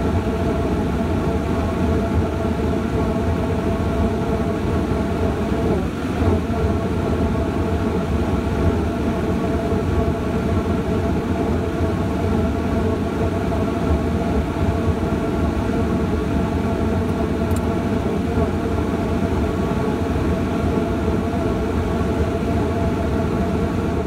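Gas furnace burners firing, a steady loud roar of the gas flames with the steady hum of the draft inducer blower running over it.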